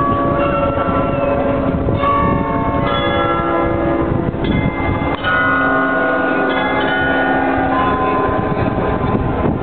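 Munich Rathaus Glockenspiel, a mechanical carillon of 43 bells, playing a tune: bell notes struck one after another and ringing on over each other, above a steady noisy rumble.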